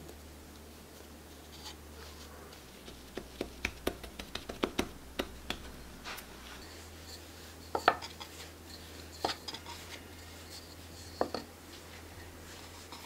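Hands working a ball of donut dough in flour on a wooden board: soft rubbing and scattered light taps as the dough is pressed flat, with a few sharper knocks on the board, the loudest about eight seconds in.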